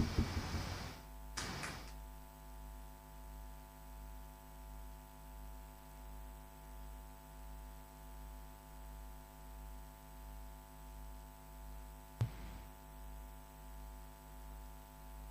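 Low, steady electrical mains hum with a slow, even throb. There are a few faint brief noises in the first two seconds and a single sharp click about twelve seconds in.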